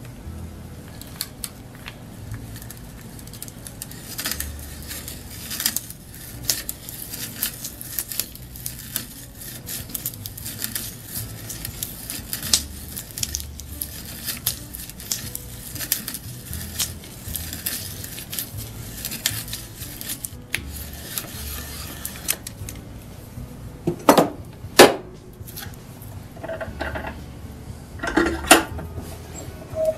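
An auger bit turned by hand in a brace, boring into a pine board: a long run of irregular crackling clicks as the freshly sharpened cutting edges shear the wood fibres and lift shavings, with low thumps underneath. Near the end come a few louder knocks.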